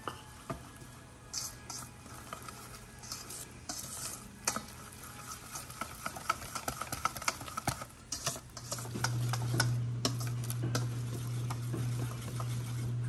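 Utensil stirring a thick powdered-sugar icing in a bowl, with irregular scraping and clinking against the bowl, as extra sugar is mixed in to thicken it. A steady low hum grows louder about nine seconds in.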